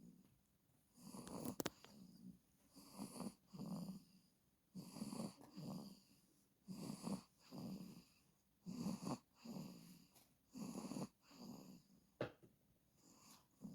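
Steady rhythmic snoring, a rough rattling snore about every two seconds.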